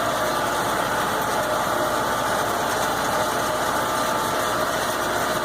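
Tractor engine running at a steady speed, an even mechanical drone with no change in pitch.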